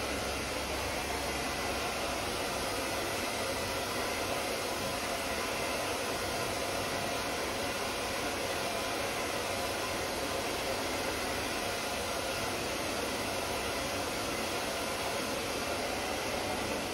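Handheld hair dryer running with a steady, even rush of air.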